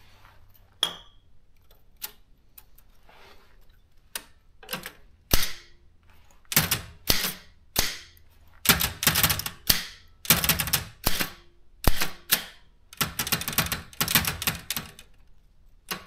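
Keys of a Daro 20 manual typewriter pressed repeatedly, the typebars clacking, a few scattered strokes at first and then rapid runs and clusters from about six seconds in. The keys are being worked to free typebars that stick, with penetrating oil given time to work.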